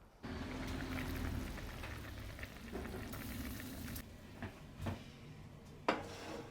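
A pot of food bubbling as it cooks, with small crackles and a sharp click near the end.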